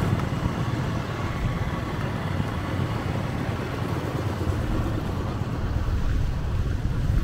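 Road traffic going by: a steady hum of passing vehicles.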